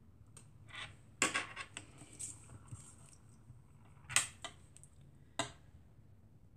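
Light taps, clicks and a short rustle of hand-handled crafting things on a cutting mat as a paper card is turned around and a glue bottle is handled. The taps come in small clusters about a second in, about four seconds in, and once more at about five and a half seconds.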